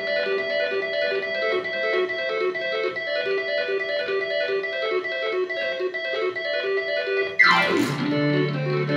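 Yamaha YC-20 combo organ playing a fast merengue riff of short, rapidly repeated notes. About seven seconds in, a sound sweeps sharply down in pitch, and a low held bass note joins under the riff.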